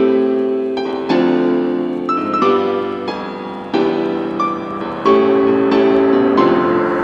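Background music: a piano playing chords, a new chord struck about every second and a half and left to ring.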